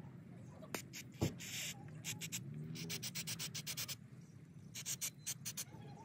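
Small metal carburetor parts being handled and sprayed with aerosol carburetor cleaner: a sharp knock about a second in, a short spray hiss, then quick runs of clicks and rattles.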